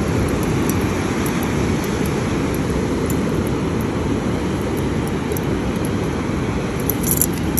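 Wind buffeting the microphone over breaking surf: a steady low rumble with a hiss of waves behind it.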